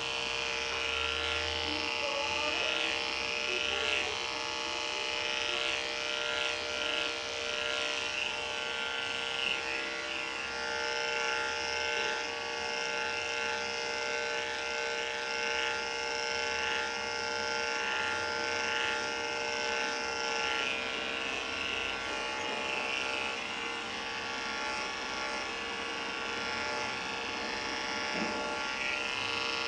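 Andis 5-speed corded dog clipper, a #10 blade under an Oster attachment comb, running with a steady hum while clipping a dog's coat.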